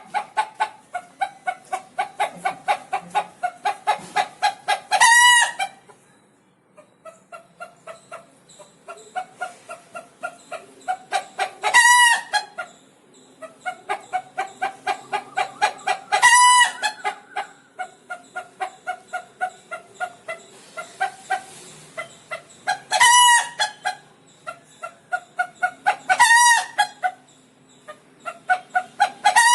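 Rooster's alarm call, the noise it makes when scared: a run of rapid clucks, about three a second, broken every few seconds by a loud, drawn-out high squawk, six times in all.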